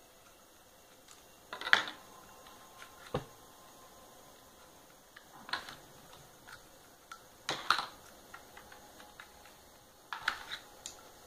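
Mattel BoomCo Halo UNSC M6 toy dart blaster being worked by hand: sharp plastic clicks and clacks of its mechanism, about five of them every two seconds or so, loudest about two and eight seconds in.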